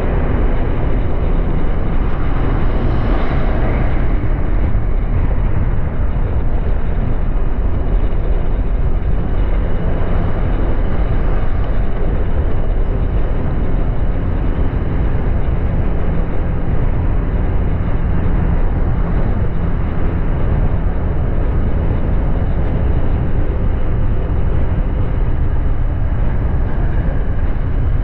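Steady wind and road rush on the camera while riding a Honda Click 125i scooter, its single-cylinder engine running evenly underneath. A short rise in higher hiss comes about three seconds in.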